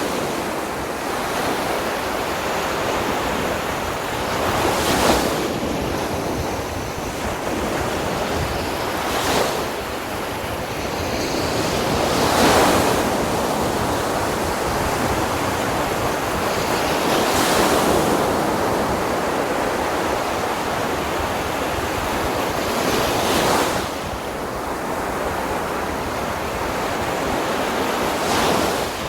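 Sea surf washing onto a sandy beach, with waves breaking about six times, a few seconds apart, over a steady rush of water.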